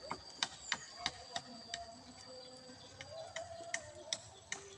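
Small DC motor running a toy bird's wing crank, clicking about three times a second over a faint steady whine.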